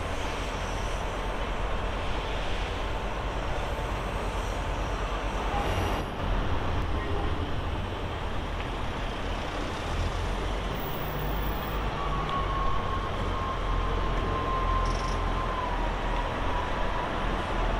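ScotRail Class 158 diesel multiple unit idling at the platform: a steady low diesel rumble under a constant hiss. A thin whine joins about two-thirds of the way through and sags slightly in pitch before the end.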